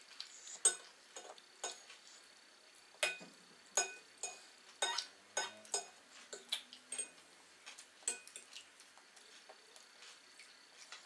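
Irregular light clinks and clicks of cutlery and dishes at a meal table, about twenty in all, the sharpest under a second in and a cluster between about three and five seconds in.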